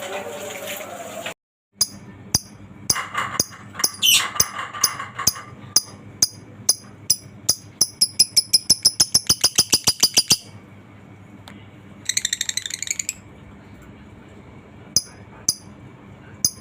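Lovebird 'ngekek' call: a series of sharp, high chirps that speed up into a fast, even chattering run, followed by a short buzzy trill and a few single chirps.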